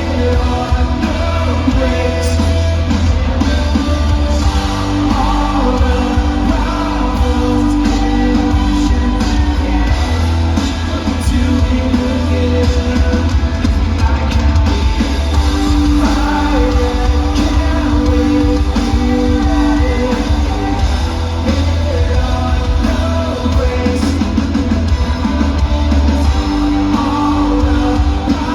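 Rock band playing live through a PA during a sound check: electric guitar over a heavy, steady bass, with singing.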